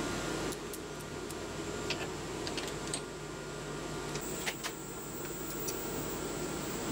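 Light metallic clicks and taps as an aluminium workpiece is set between the jaws of a milling machine's three-jaw chuck and the chuck key is fitted, over a steady workshop hum. A steady hiss stops about half a second in.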